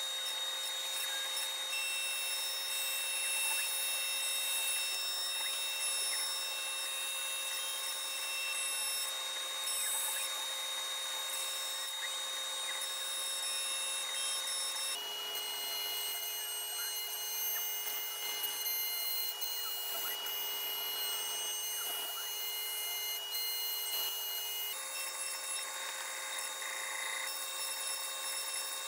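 Shapeoko XXL CNC router's spindle running with a steady high whine as its bit carves grooves into painted plywood. The pitch of the whine jumps abruptly about halfway through and again near the end.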